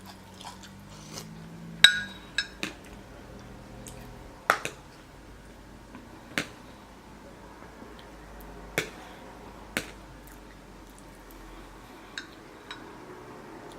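Eating at a plate of curry and rice: about a dozen scattered sharp clicks and taps of cutlery against a dish, the loudest about 2 and 4½ seconds in.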